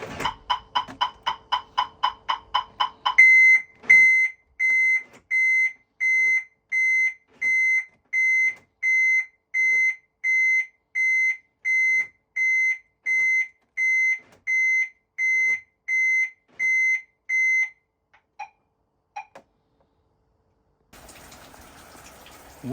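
1995 Jaguar XJR's electronic warning beeper. A fast chiming of about five pulses a second runs until about three seconds in, then gives way to a steady series of single high beeps, about one and a half a second, that stops abruptly, followed by two faint blips. A faint hiss comes in near the end.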